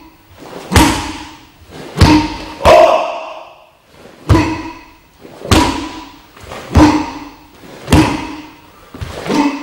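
Sharp snaps of a karate gi and thuds of bare feet planting on a wooden floor with each technique of the Heian Nidan kata, about eight of them, each a second or so apart, each echoing briefly off the hall.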